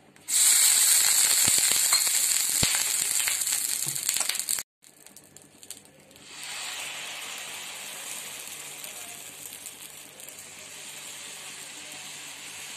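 Hot dosa tawa sizzling: a loud hiss starts just after the opening and cuts off abruptly after about four and a half seconds; from about six seconds in a softer, steady sizzle follows as uttapam batter is poured and spread on the heated tawa.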